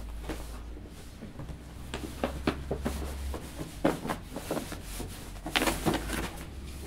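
Paper gift bag rustling and crinkling as a jacket is pulled out of it, with fabric swishing: a run of short crackles and knocks, busiest about two seconds in, around four seconds and toward the end.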